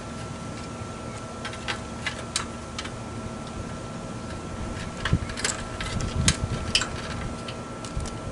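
Scattered metallic clicks, taps and knocks from hands working on the air-conditioner condenser, with a cluster of louder clatter a little past halfway, over a steady mechanical hum.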